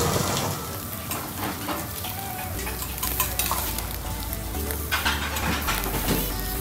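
Steak sizzling on a grill over charcoal, with a few clicks of metal tongs against the grate.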